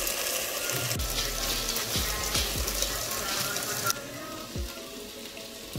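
Rice and water boiling in a pan on the stove: a busy hissing, crackling bubble. About four seconds in it drops and becomes quieter and duller, as the pan is under its glass lid.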